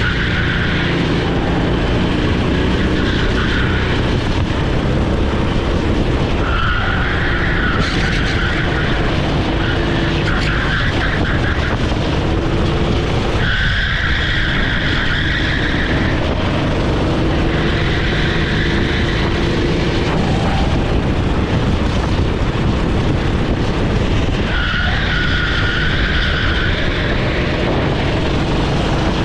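Rental kart's single-cylinder Honda GX390 four-stroke engine running hard under load, with the tyres squealing through corners several times, each squeal lasting a second or a few seconds.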